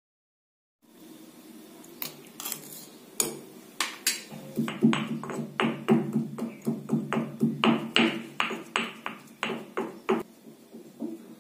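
Stone pestle pounding cumin and fennel seeds in a stone mortar: a run of sharp knocks, about two to three a second, that starts about two seconds in and stops near the end. Background music plays underneath.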